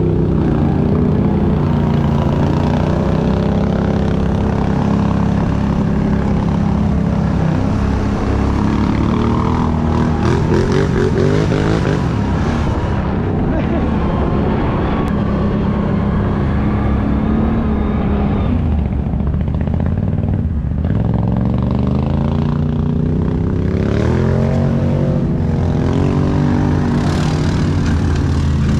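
ATV engine running steadily under the rider while driving along a dirt trail, its note rising and falling with the throttle.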